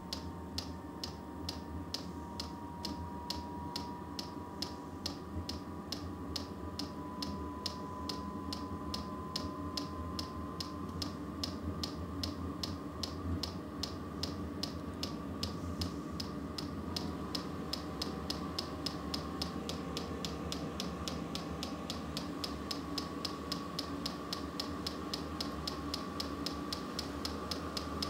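XVentures portable diesel heater running: its fuel dosing pump ticking evenly, about three times a second, over the steady hum of the blower. The blower's whine rises slowly in pitch as the heater works its way up after start-up.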